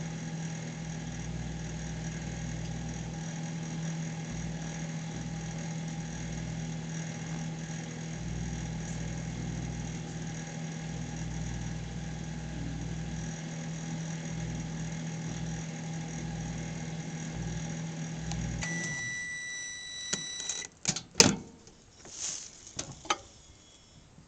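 Sharp Half Pint compact microwave oven running with a steady hum. About 18 seconds in, the hum stops and a long beep of about two seconds sounds as the one-minute cook cycle finishes, followed by a sharp click and a few knocks.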